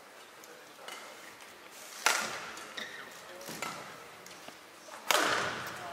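Badminton rally: rackets hitting a shuttlecock, a light tap about a second in, then sharp hits echoing in the hall, with the loudest burst of sound about five seconds in.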